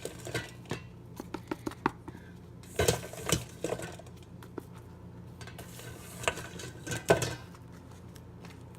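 A spoon scraping and knocking against a bowl and a container as ice cream is scooped across, in irregular clusters of clinks and scrapes.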